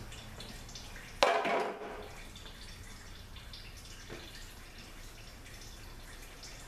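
Transmission fluid dripping from the opened Ford 4R100 automatic transmission, a light patter of small drips. About a second in, a sudden loud clunk with a short rattling tail as the removed transmission filter is put down, and a softer knock a few seconds later.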